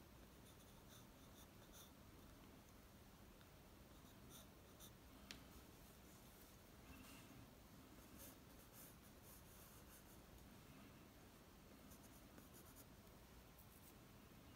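Faint scratching of a graphite pencil on paper in short sketching strokes, with one sharp short tick about five seconds in, over a faint steady hum.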